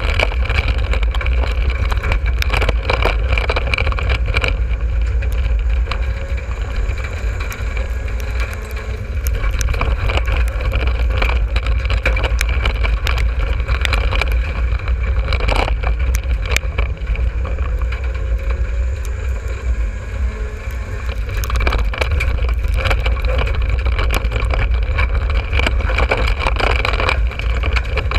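Dirt-track race car's engine running hard, heard from inside the caged cockpit, with constant rattling and knocking as the car goes over the rough track. The engine sound eases briefly a few times before picking up again.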